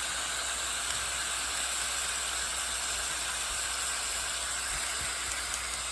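Steady hiss of pumpkin chunks and red onion frying in a little oil in a pan.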